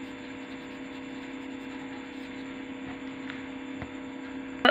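A steady low hum over faint room noise, with a single sharp click near the end.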